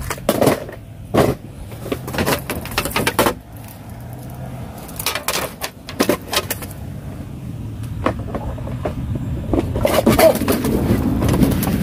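Small plastic items and containers being handled, giving a series of light clicks and knocks, over a low steady hum that grows louder near the end.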